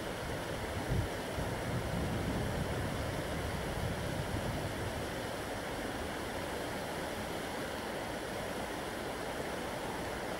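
Shallow river running fast over a riffle, a steady rushing of water, with some low wind rumble on the microphone in the first few seconds.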